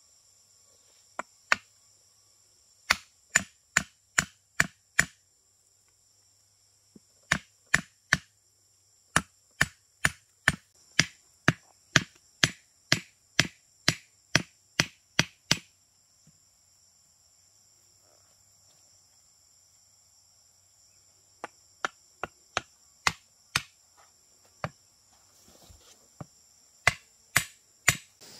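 Runs of sharp knocks, about two to three a second, stopping and starting in groups. A steady high drone of insects continues behind.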